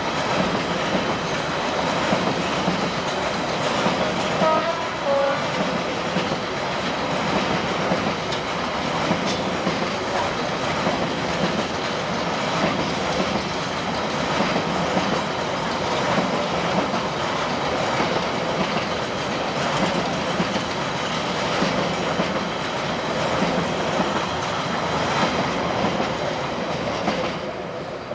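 Freight train of covered car-carrier wagons rolling past, a steady rumble with wheel clatter that dies down near the end. A few short high tones sound about four to five seconds in.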